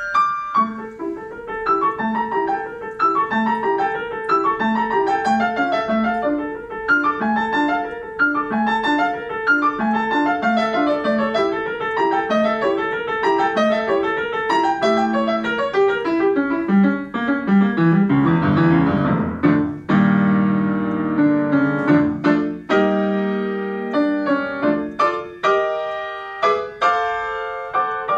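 A grand piano played solo, classical style. A steady, flowing figure of evenly repeated notes gives way past the middle to a fast, dense run of notes, then a held chord and a string of separate, sharply struck chords.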